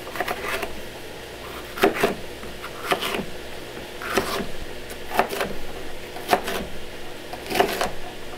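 Kitchen knife cutting a green bell pepper on a cutting board: sharp knocks of the blade about once a second, often in quick pairs.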